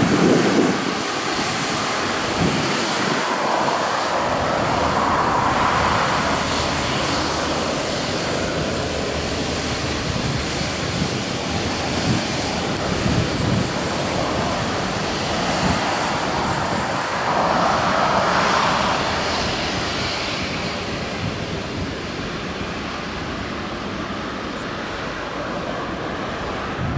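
Airbus A350-941 jet engines (Rolls-Royce Trent XWB) running at low thrust as the airliner taxis, a steady rush that swells twice, about six seconds in and again near eighteen seconds.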